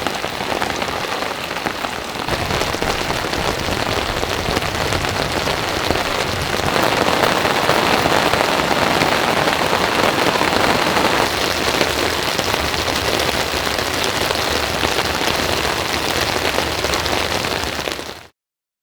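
Heavy rain falling steadily. It grows somewhat louder a couple of seconds in and again in the middle, then fades out abruptly near the end.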